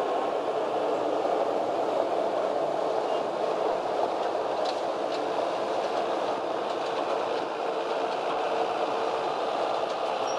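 Passenger train running: a steady noise of the cars rolling along the rails, with a few faint clicks about halfway through.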